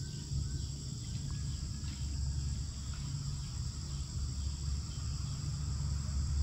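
Steady high-pitched chorus of insects such as crickets, over a steady low rumble.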